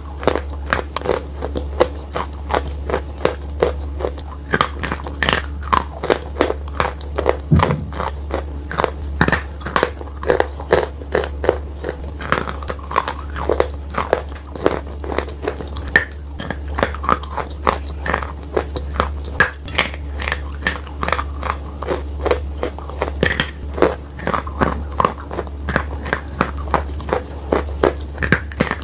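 Close-miked biting and chewing of wet chalk coated in clay paste: dense, crisp crunches, several a second, with a steady low hum underneath.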